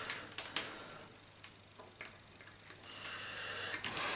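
Small clicks and taps from handling multimeter probes and the mouse switch: a few sharp clicks at the start, one about two seconds in, then a soft rustle near the end.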